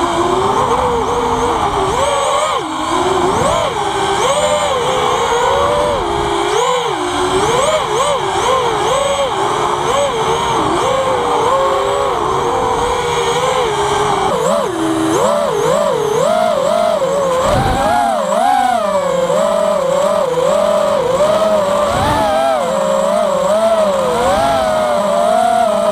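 THuG 220 v5 FPV racing quadcopter's brushless motors whining, the pitch rising and falling constantly with the throttle, heard close up from the onboard camera.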